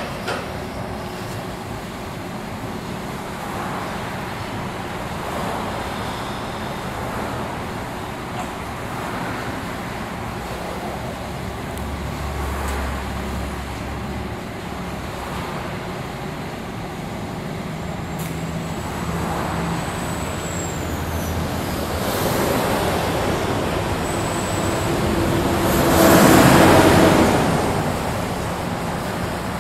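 Large Betts vertical turret lathe with a 108-inch table running, its table turning with a steady mechanical hum. A thin high whistle comes in about two-thirds of the way through and drops in pitch as it stops. A louder hiss-like surge lasting about two seconds comes near the end.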